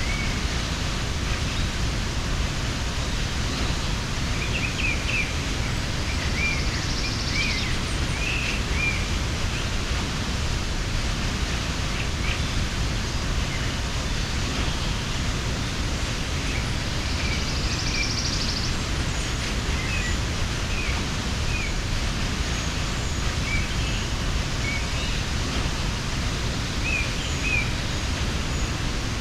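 Steady rush of a mountain waterfall, with birds chirping briefly and intermittently over it.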